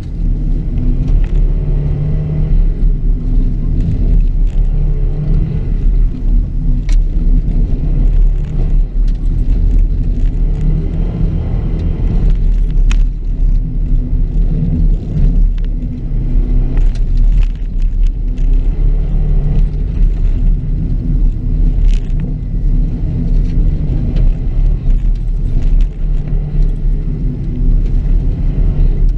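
2006 Subaru WRX's turbocharged flat-four engine running hard on a dirt rallycross course, its revs rising and falling as it shifts and slows for corners. A heavy low rumble runs under it, with scattered sharp ticks.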